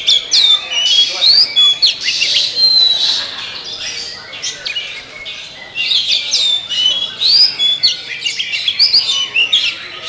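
Oriental magpie-robin (kacer) singing loudly: a fast, varied run of whistled notes and quick pitch sweeps, in two long phrases with a short lull in the middle.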